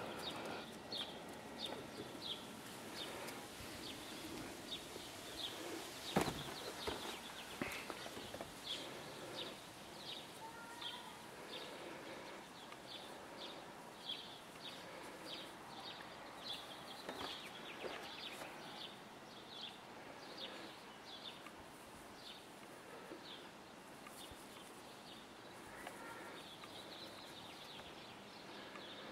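A small bird chirping over and over, short high chirps about once a second, faint. A single sharp knock about six seconds in.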